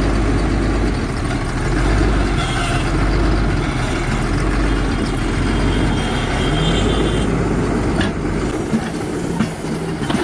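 Excavator's diesel engine running steadily with a deep hum. About eight seconds in the low hum drops away, and a few sharp knocks follow.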